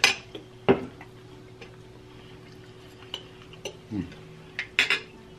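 Forks and cutlery clicking and scraping on plates during a meal: a few sharp clinks, one right at the start, another just under a second in and two close together near the end, over a faint steady hum.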